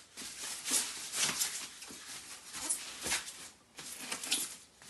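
Packing wrap rustling and crinkling as it is pulled off a guitar, in irregular strokes.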